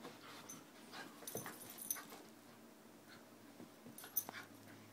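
Two puppies play-fighting, with small whines and panting as they scuffle. A couple of sharp clicks stand out, about two seconds and four seconds in.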